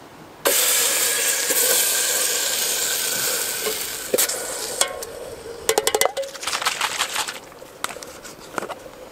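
Buttered chicken dropping into a hot pot on a gas canister stove sizzles loudly, starting suddenly and slowly dying down over a few seconds. After that come clinks and scrapes as the food container is scraped out against the metal pot.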